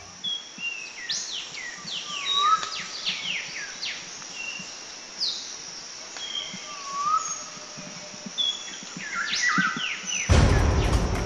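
Several birds calling in woodland: repeated quick descending whistles and chirps over a steady high hiss. About a second before the end a loud rushing noise cuts in.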